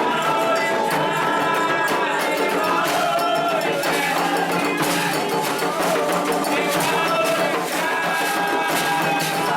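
Candomblé ritual music: voices singing a chant to the orixás over a ringing metal bell (agogô) and steady percussion strikes.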